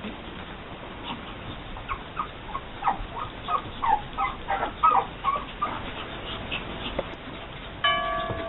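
Pug puppy whimpering in a run of short, high-pitched squeaky cries, most of them in the middle of the stretch. Near the end a steady, even tone with overtones starts up and holds.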